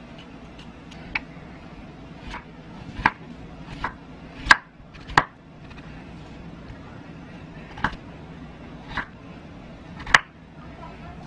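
Kitchen knife slicing through raw potato, each cut ending in a sharp knock on a wooden cutting board. There are about nine unevenly spaced strokes over a low steady hum.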